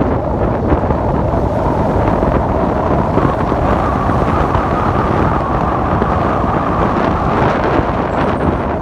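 Steady rush of wind buffeting the microphone of a moving car, over low engine and road noise.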